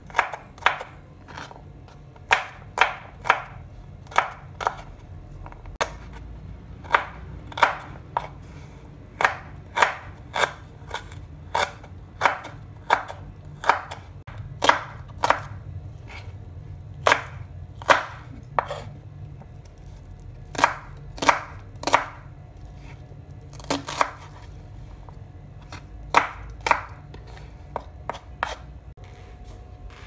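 Kitchen knife chopping garlic cloves and then a red onion on a wooden cutting board: sharp, irregular knocks of the blade on the board, often in pairs or quick runs of two or three.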